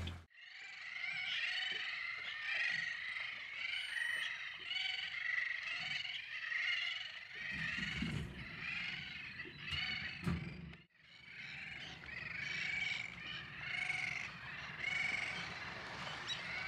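A breeding colony of bridled terns and black-naped terns calling: many sharp, overlapping calls in a continuous chorus. The chorus cuts out for a moment about two-thirds of the way through, then resumes.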